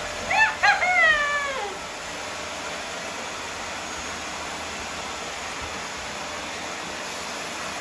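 Vacuum cleaner motor running steadily. About half a second in, a loud, high, whining cry of two or three quick notes, the last one sliding down in pitch.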